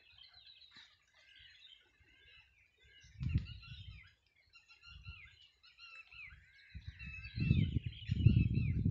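Many small birds chirping and twittering throughout. A low rumbling noise comes in briefly about three seconds in, then returns from about seven seconds and is the loudest sound.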